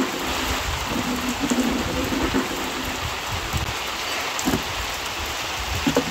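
Heavy monsoon rain falling steadily: an even hiss, with a faint low hum in the first couple of seconds.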